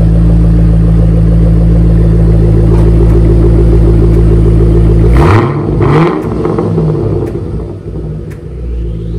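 Shelby GT500's supercharged V8 idling loudly with a steady exhaust rumble, run briefly after an oil change to circulate the fresh oil. About five seconds in, two short louder bursts break the steady note, and the engine sounds rougher and quieter after them.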